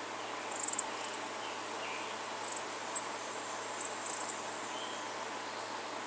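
Chipping sparrows giving short, very high chips, a few scattered groups of them.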